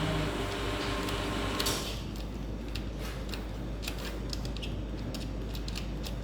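E61 group head lever mechanism being worked: a pitched squeak for the first two seconds or so, then scattered light metallic clicks. The squeak is the lever fault being fixed.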